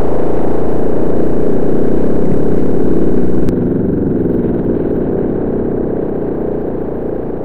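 A steady, dense, engine-like rumble. About three and a half seconds in it drops suddenly in level and loses its upper hiss, then slowly fades.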